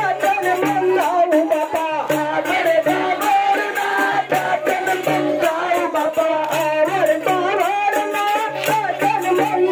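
Folk dance song: a singing voice over a repeating low bass line, with steady percussion and a shaker-like rattle.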